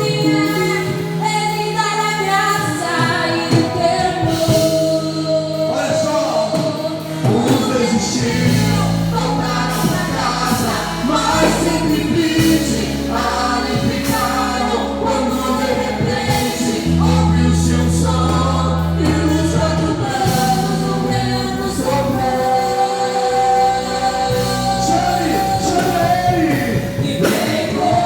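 Live Portuguese gospel worship song: voices singing together over keyboard and bass with a steady drum beat.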